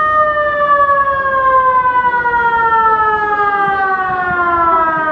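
Outdoor warning siren sounding for a fire-evacuation drill: one loud, steady wail that begins abruptly and slowly falls in pitch as it winds down.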